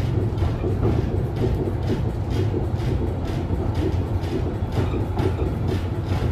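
Cabin sound of a 1960 Duewag GT8 tram running: a steady low rumble with a rhythmic clatter about twice a second.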